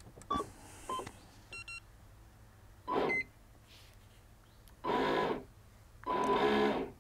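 Electronic beeps from a New Direction Tackle Bait Boat 2 bait boat and its hand remote as they are switched on and link up: a few short bleeps in the first three seconds, then two longer beep tones near the end.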